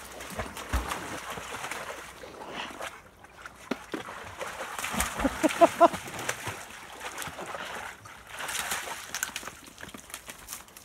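Dogs wading and splashing in a shallow rocky creek, water sloshing and trickling with scattered knocks of paws on stones. About halfway through comes a quick run of short high-pitched squeaks.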